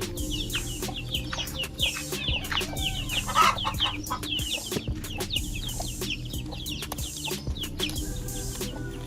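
Chickens clucking: a quick, continuous run of short high-pitched calls, each sliding down in pitch, with one louder, fuller call about three and a half seconds in.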